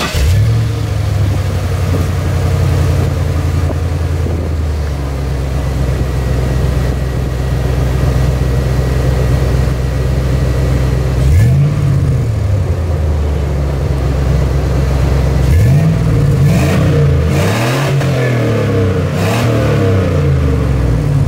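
1999 Chevy Silverado 1500's engine breathing through a Flowmaster muffler welded in place of the factory muffler, with the catalytic converters still in place. It idles steadily, is revved once briefly about eleven seconds in, then is blipped several times in quick succession near the end. The idle runs high, and there is an exhaust leak at the manifold; the owner means to fix both.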